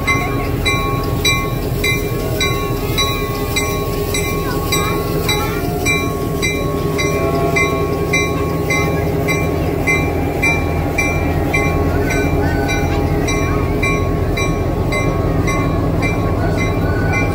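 EMD GP38-2 diesel locomotive, a 16-cylinder two-stroke engine, running steadily. A bell rings over it at a regular pace of about two and a half strokes a second.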